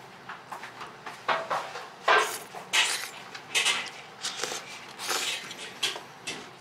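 Chopsticks and a wooden spoon knocking and scraping against a glazed ceramic bowl: a run of irregular knocks, loudest from about two seconds in, over a steady low room hum.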